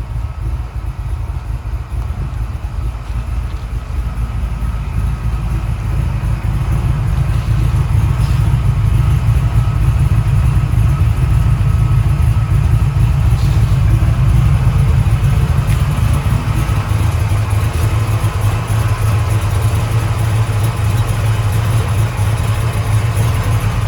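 1994 Impala's Vortech-supercharged LT1 small-block V8 running at a steady idle, a deep, even engine sound that grows somewhat louder about six seconds in.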